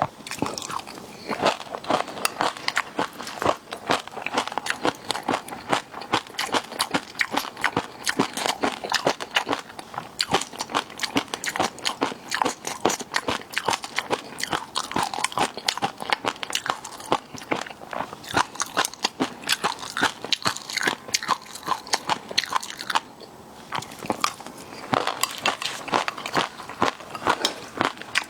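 Close-miked eating of seafood: rapid crunching, biting and wet chewing, many small crackles a second, with a short lull about two-thirds of the way through.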